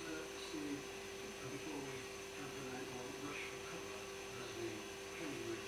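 A steady electrical hum, with faint, muffled voices underneath.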